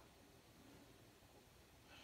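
Near silence: faint room tone and recording hiss.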